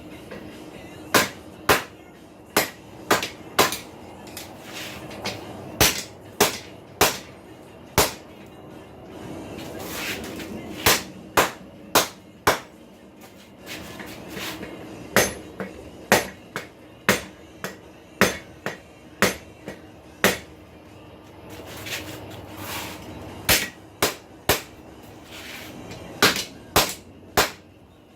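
Hand hammer striking a hot steel farrier's rasp on an anvil, in irregular runs of a few blows with short pauses between, as a bend is forged into it.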